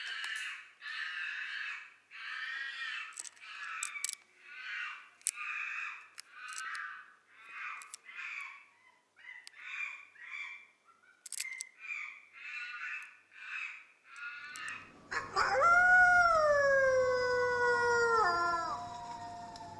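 Monkey chattering calls in short high-pitched bursts, one or two a second, then from about 15 s a wolf's long howl that rises and slides down in pitch, with a second falling howl line carrying on near the end.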